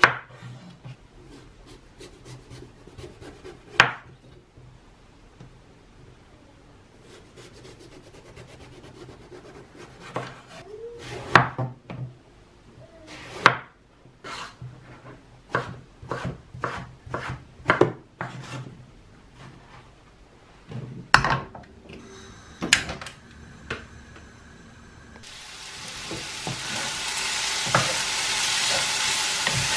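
Kitchen knife peeling and slicing eggplant on a wooden chopping board: scraping with a series of sharp knocks of the blade on the wood. Near the end, diced eggplant and courgette start sizzling in a hot oiled frying pan as they are stirred, a steady hiss that grows louder.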